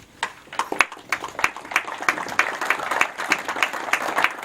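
Audience applauding: many hands clapping irregularly, starting about a quarter second in.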